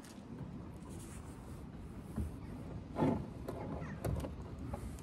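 Steel tow bar arms scraping and lightly knocking against the car's frame rails as the bar is offered up and pushed into place, with a louder scrape about three seconds in and a few small clicks after it.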